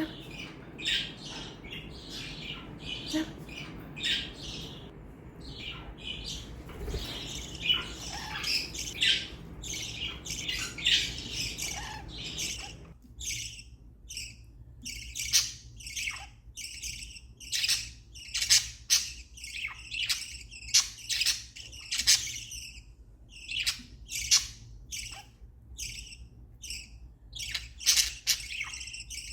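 Small pet parrots chirping and squawking in a steady stream of short, sharp, high calls. A low background hiss drops away suddenly about halfway through, leaving the calls more separate.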